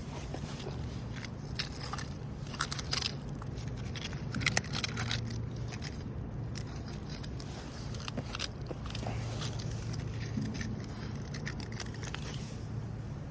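Labrador retriever chewing a dry fallen leaf: crisp crunching and crackling in irregular bursts, heaviest in the first few seconds, over a steady low hum.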